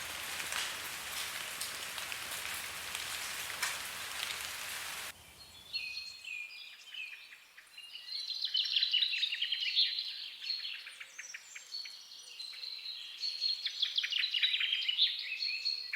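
Steady rain falling, which cuts off abruptly about five seconds in and gives way to many small birds chirping.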